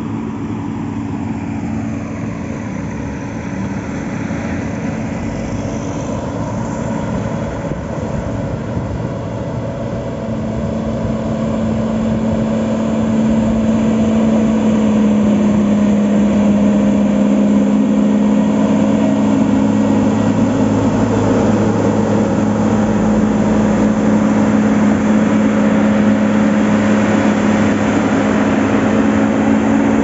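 Motor grader's diesel engine running steadily as it grades the road's dirt bed, getting louder about halfway through as the machine comes close.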